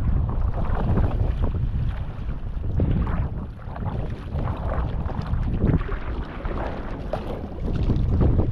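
Wind rumbling on the microphone over water splashing around a folding sea kayak, with a surge of splashing every second or two.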